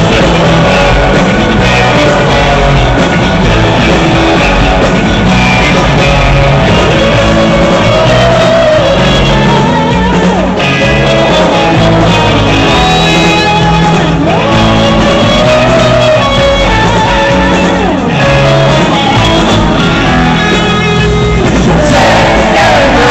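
A rock band playing live and loud, with drum kit and guitar, and a male voice singing the melody.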